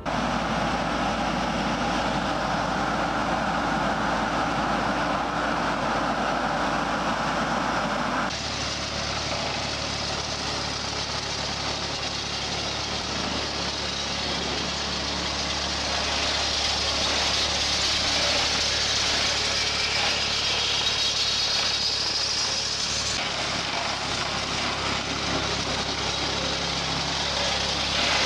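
Engines of farm machinery running steadily, with the sound changing suddenly about 8 seconds in and again about 23 seconds in, as one clip cuts to the next.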